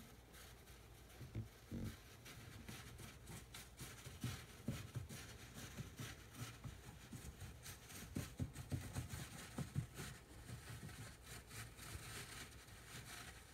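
A hamster burrowing through shredded paper bedding while gathering nest material: a faint, irregular rustling and crackling of paper, busiest about eight to ten seconds in.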